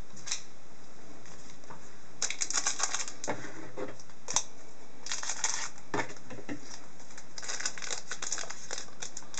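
Crinkling and tearing of a trading-card pack wrapper being opened by hand, in irregular crackly bursts with a sharp click about four seconds in.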